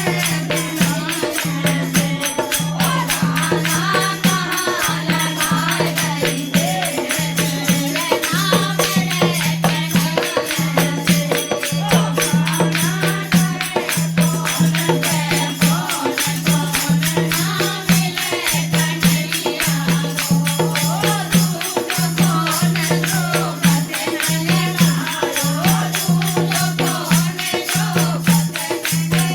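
Hindi devotional Krishna bhajan: voices singing the melody over a busy jingling rhythm like a tambourine or rattle, with a repeated low note underneath.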